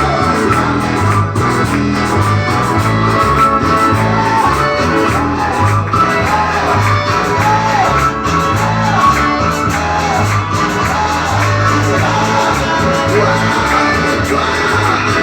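Live Spanish-language praise music: singing over a band of guitar and bass with a steady beat.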